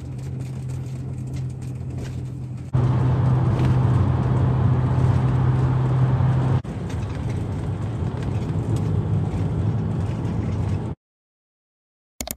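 Bus engine and road noise heard from inside the passenger cabin: a steady low drone with a constant hum. It grows louder about three seconds in, drops back a little past the middle, and cuts off abruptly near the end.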